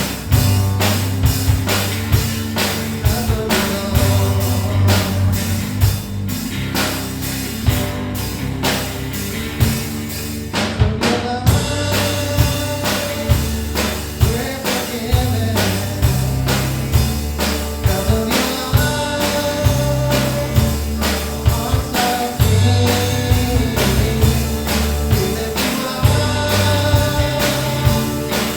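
Band playing a rock-style worship song with drum kit keeping a steady beat, and singing.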